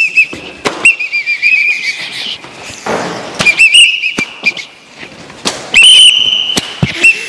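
A pea whistle blown in repeated short, trilling blasts, with a longer steady blast about six seconds in. Sharp clicks and knocks fall between the blasts.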